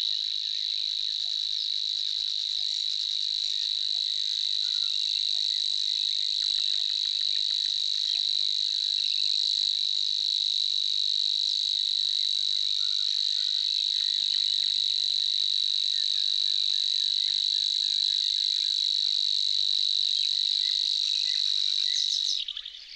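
Savi's warbler reeling: one long, unbroken, electric-sounding buzzing trill at a steady pitch, which stops abruptly near the end. Fainter birdsong sounds underneath.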